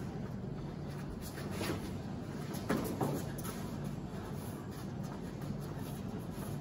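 Faint thuds and scuffs of taekwondo sparring on the mat, two close together about three seconds in, over a steady low room hum.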